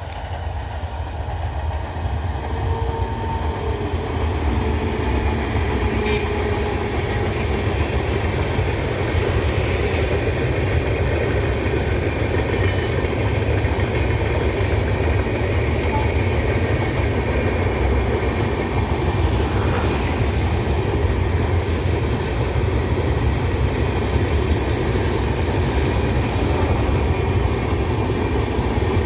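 Passenger train passing close by: a steady, loud rumble and clatter of coach wheels on the rails that swells over the first few seconds and then holds.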